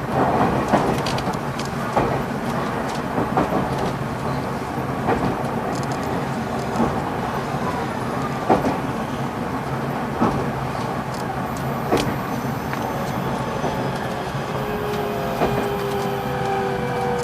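Running sound heard inside a JR Central 373 series electric motor car: a steady rumble with wheels clacking over rail joints about every one and a half to two seconds. From about fourteen seconds in, the Toshiba GTO-VVVF inverter starts sounding as several steady tones that fall slowly in pitch as the train slows.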